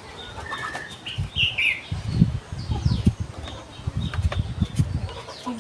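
Small birds chirping, with short high chirps and quick falling notes, over irregular low thumps and rustling.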